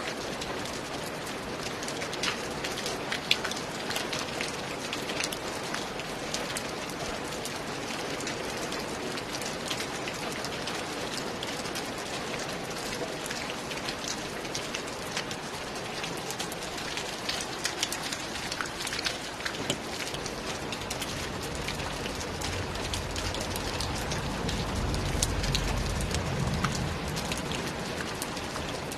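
Steady rain with many sharp individual drop hits. A low rumble swells and fades about three-quarters of the way through.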